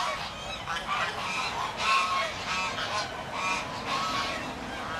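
Several domestic geese honking: a run of short, nasal honks, about two a second, overlapping one another.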